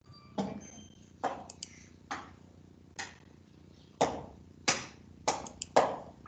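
A brief faint chime, then a run of about ten sharp, irregularly spaced clicks from a computer mouse being clicked.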